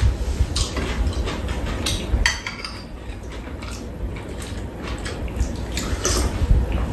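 Metal spoons and chopsticks clinking and scraping against bowls on a metal tray as food is scooped up and eaten, with scattered sharp clicks.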